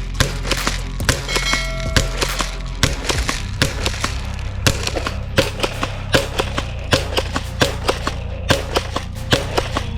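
Plastic toy gun clicking and snapping many times in an irregular run, over steady background music.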